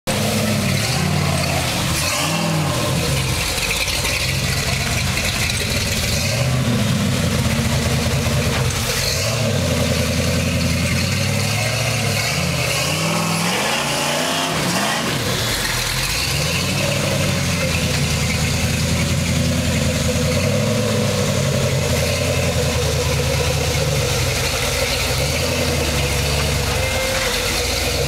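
Rock-crawler buggy's engine working under load as it climbs a wet rock ledge, its revs rising and falling again and again in surges, with brief dips about two seconds in and around the middle.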